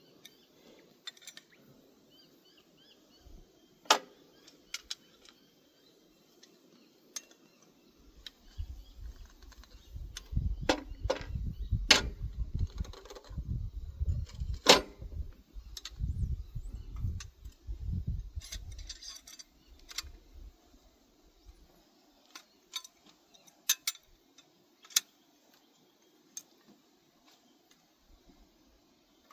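Scattered metal clicks and clinks of spanners being worked on a pump's stainless shaft to unscrew the rotor, with a low rumble through the middle stretch.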